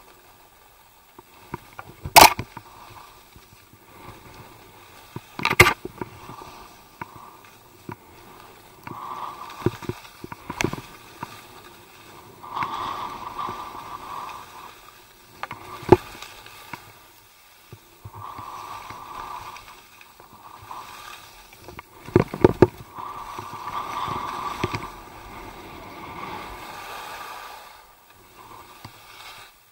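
Skis sliding through soft, chopped-up snow, a swishing hiss that comes and goes with each turn. Several sharp knocks break through it, about five over the run.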